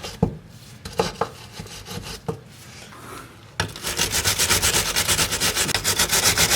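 A few light knocks and clicks, then from about halfway through a fast, steady back-and-forth scrubbing: a wire brush working the rust and grime off a crossmember bolt.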